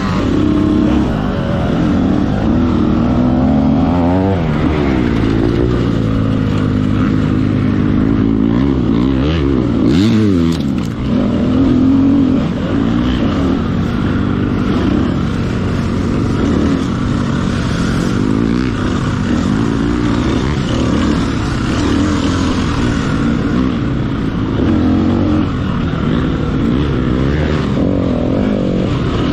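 Off-road dirt bike engine racing, its pitch rising and falling again and again as the throttle opens and closes and the gears change, with a brief drop in revs about ten seconds in.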